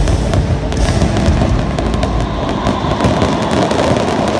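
Fireworks display going off in rapid succession: dense crackling and popping over a continuous low rumble of bursts.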